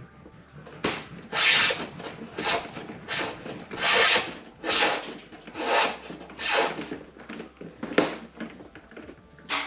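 Repeated scraping rub strokes, about one a second, from hands working the plastic fish-finder mounting bracket and the cables routed through it.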